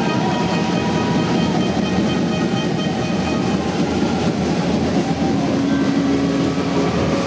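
Arena crowd cheering and clapping in a hard, echoing ice rink just after a home goal. A steady held tone comes in over it about five and a half seconds in.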